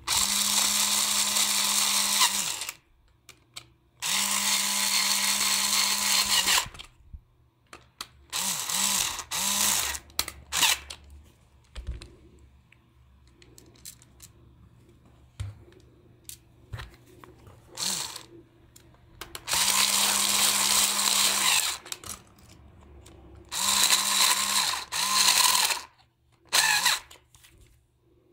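Small electric screwdriver turning screws in a plastic toy's housing. It runs in four stretches of about two seconds each, with several shorter blips between them, and each run holds a steady motor whine. Light plastic clicks and handling noise fill the pauses.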